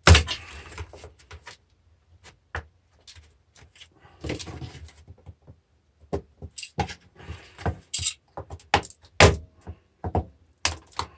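Irregular sharp clicks, snaps and knocks of a battery charger's plastic housing being cut and broken apart to free the on-off switch, with loose parts clattering on the bench. A loud snap opens the run, with short scraping stretches in between.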